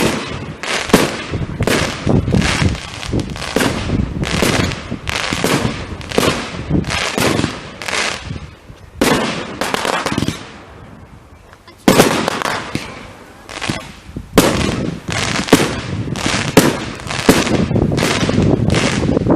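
Fireworks going off in a rapid run of bangs and crackles. A short lull comes a little past halfway, then a sudden loud bang and more bangs.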